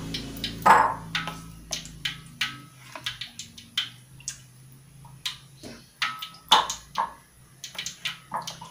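Plastic ladle and ceramic bowls clinking and knocking as rice-flour batter is scooped and handled: a string of light, irregular clicks and knocks.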